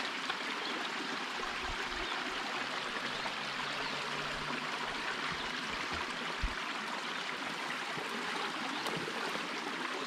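Small creek running steadily over rocks, an even rushing of shallow flowing water, with a brief low thump about six and a half seconds in.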